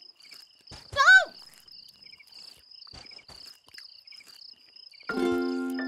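Crickets chirping steadily as night ambience in a cartoon. About a second in, a character makes a short wordless vocal sound that rises then falls in pitch. Near the end a musical chord is struck and rings on, slowly fading.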